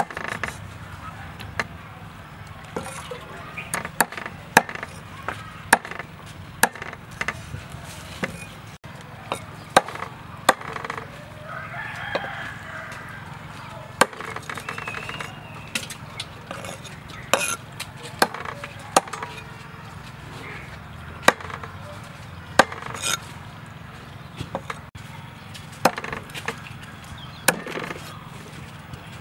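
Steel meat cleaver chopping frogs on a round wooden chopping block: sharp knocks at an irregular pace, with a rooster crowing about halfway through.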